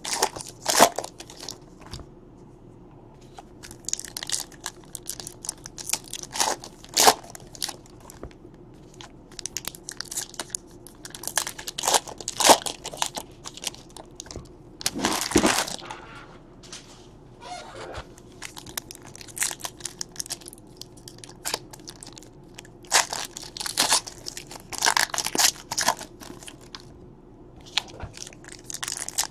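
Foil trading-card pack wrappers crinkling and being torn open by hand, in irregular spells of crackling, with one longer, louder spell about halfway through.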